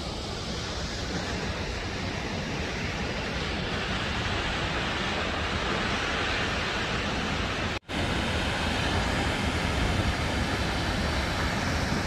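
Strong wind rushing across the phone's microphone, a steady noise with gusty rumble low down. It breaks off for an instant about eight seconds in, then carries on.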